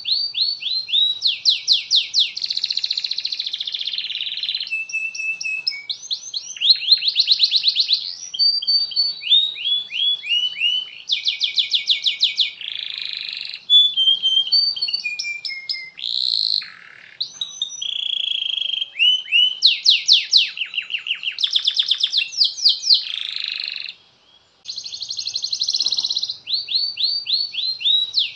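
Domestic canary singing a long, continuous song of fast repeated notes and buzzy trills, with a brief break about 24 seconds in.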